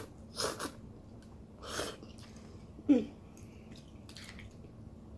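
A person eating: two short breathy puffs of air, then a brief, sharp pitched sound falling in pitch about three seconds in, the loudest moment.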